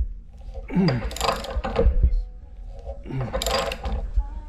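Threaded pipe fitting being wrenched tight on doped threads, creaking and grinding with each pull of the wrench, twice, about two seconds apart.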